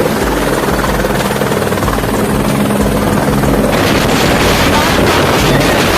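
Helicopter running close by, a steady loud rotor and engine din; about two-thirds of the way in a rushing hiss grows stronger over it.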